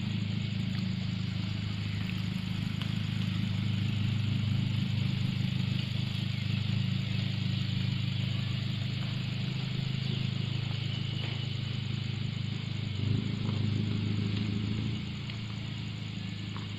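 Engine idling steadily, a low even hum; its note shifts briefly about thirteen seconds in and it drops in level near the end.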